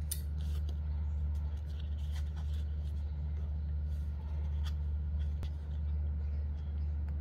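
A steady low hum, with scattered light rustles and taps from paper, card and thread being handled while a small book is hand-stitched.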